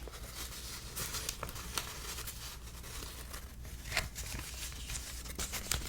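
Paper banknotes handled close to the microphone, crinkling and rustling with a few sharper snaps, the loudest about four seconds in.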